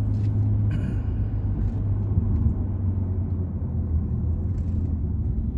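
Steady low rumble inside the cabin of a BMW M235i on the move, its turbocharged straight-six and tyres droning evenly at low speed.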